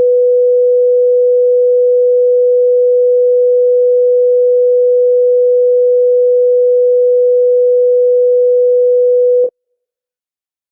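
Heart monitor flatline: one continuous steady beep at a single pitch, the monitor's signal that no heartbeat is detected. It cuts off abruptly about nine and a half seconds in.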